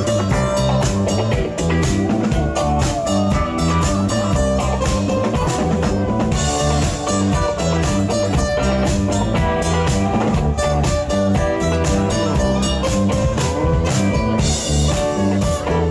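Live rock band playing with electric and acoustic guitars over a drum kit keeping a steady beat.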